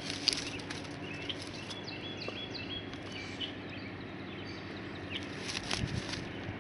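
Small birds chirping repeatedly in the background, with clicks and crackles from a hand working through dry straw mulch. The sharpest click comes just after the start, and more come near the end.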